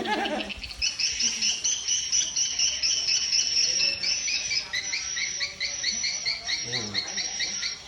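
Swiftlet lure call played through a swiftlet-house cluster speaker: high, fast chittering that, about halfway, becomes a string of separate chirps repeating roughly four times a second.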